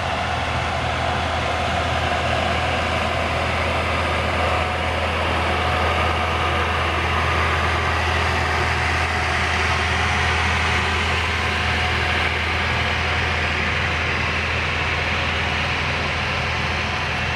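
Diesel engine of heavy asphalt-paving machinery running steadily: a constant low hum with an even mechanical noise over it.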